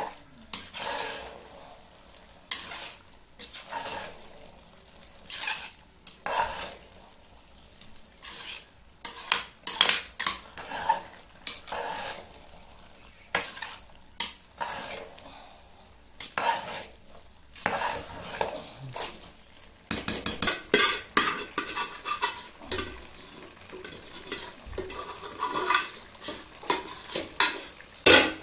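Steel spoon stirring and scraping thick grated-carrot halwa around a large aluminium pot. The strokes come every second or two at first, then quicken to about four a second for the last several seconds.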